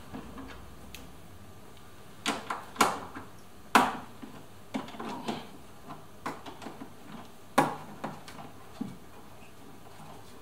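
Irregular clicks and knocks of hands working parts inside a car's bare metal door cavity. The loudest clanks come about four seconds in and again near eight seconds.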